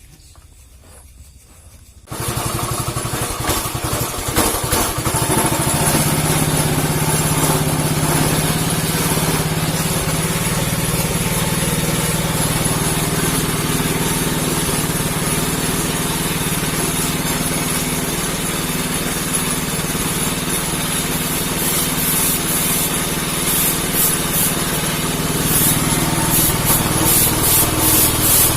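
Vespa PX two-stroke single-cylinder engine starting about two seconds in, then running steadily; near the end the sound pulses rhythmically.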